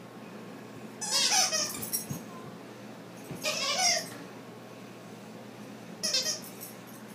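Dog's squeaky plush toy squeezed in its mouth, giving three bursts of wavering squeaks: about a second in, midway, and a short one near the end.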